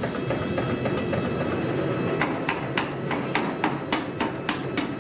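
Mechanical power hammer striking a hot steel blank in rapid repeated blows, which taper it into an excavator tooth. The strikes fall steadily at about three to four a second from about two seconds in, over background music.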